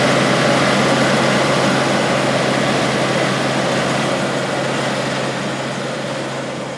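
International 815 combine running under load while harvesting corn with its four-row corn head: a steady diesel engine drone with a low hum under the threshing machinery's wide rushing noise, gradually getting quieter.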